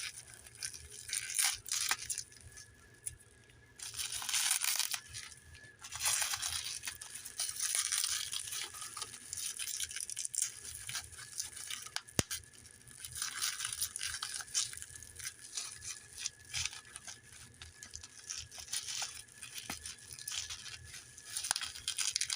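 Plastic packaging rustling, crinkling and tearing as small 3D-printed plastic parts are unwrapped and handled, in irregular bursts, with a sharp click about twelve seconds in.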